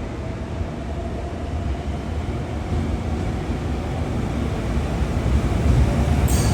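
Train moving at the station platform: a low rumble that grows steadily louder, with a faint steady tone over it and a brief high hiss near the end.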